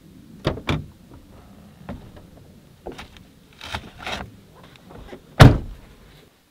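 Truck door and latches being worked: a few light clicks and knocks, then one heavy door-shutting thump about five seconds in.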